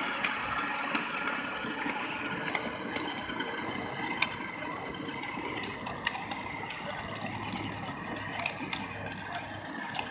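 A vehicle's motor running steadily at low speed with wheels rolling over asphalt, with a few light clicks.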